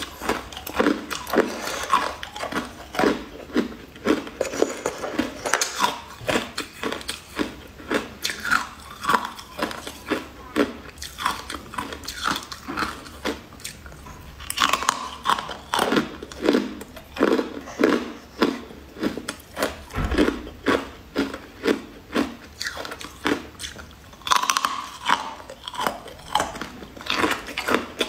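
Close-miked eating sounds: biting into and chewing a waffle-shaped sweet, a steady run of crunchy bites and chews about two or three a second.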